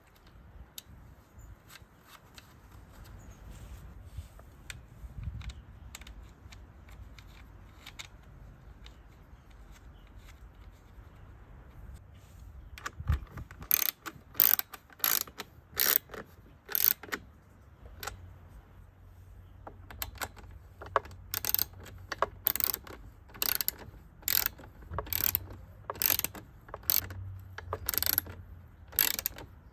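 Socket ratchet clicking as the bolts of a Sanli OHV 400 lawn mower engine's recoil starter cover are tightened. It comes in two runs of sharp clicks, about two a second: one from about halfway in and a longer one near the end, with quiet handling before.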